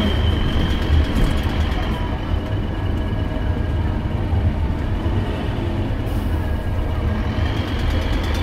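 Scania K270UB bus's five-cylinder diesel running with a steady low rumble, heard from inside the passenger cabin. The knocking engine note is likened to a Lanz Bulldog tractor and is put down to a possible exhaust manifold leak or bad valves.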